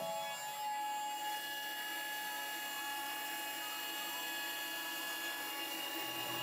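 CNC router spindle running with a steady whine while its bit cuts end-grain wood, with an even hiss from the cut.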